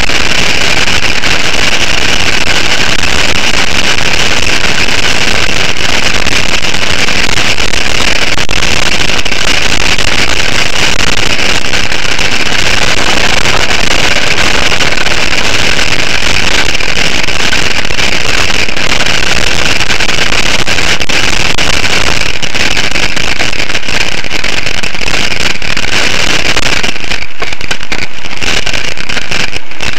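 Loud, steady wind rush and rolling rumble on the microphone of a camera mounted on a moving bicycle. The hiss thins and breaks up briefly near the end.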